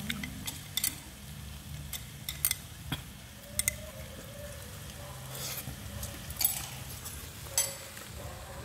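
Metal chopsticks tapping and scraping against a ceramic plate: scattered sharp clicks, the loudest about six and a half seconds in, over a steady low background hum.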